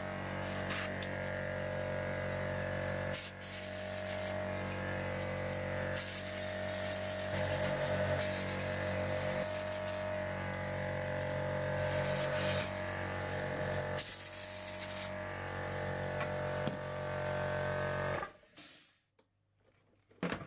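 Small electric air compressor running with a steady hum while an air blow gun gives several hissing blasts, forcing trapped water out of freshly washed keycaps. It stops abruptly shortly before the end.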